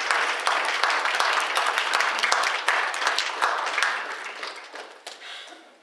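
Audience applauding, dense and steady at first, then thinning out and dying away over the last couple of seconds.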